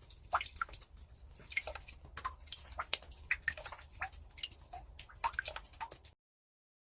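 Water dripping: irregular drops plinking at varied pitches, with small clicks between them, cutting off abruptly about six seconds in.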